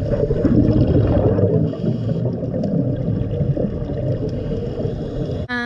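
Underwater noise recorded below the surface: a dense, steady rumble and rush of water.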